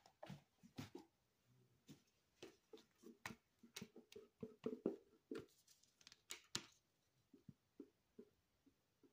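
Plastic pouring cups being handled: a quick run of light taps and clicks for about seven seconds, then a few fainter ticks near the end.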